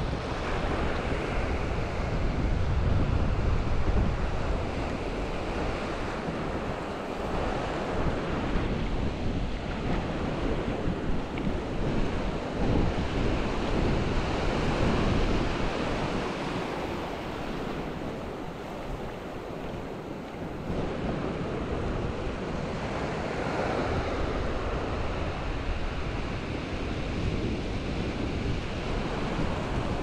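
Ocean waves breaking and washing up on a sandy beach, swelling and easing in turn, with wind buffeting the microphone.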